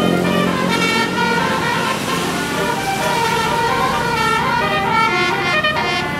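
Tour bus telolet horn, a set of Basuri multi-tone air horns, playing a tune of short notes that step up and down in pitch. A rushing noise swells under the notes about two seconds in.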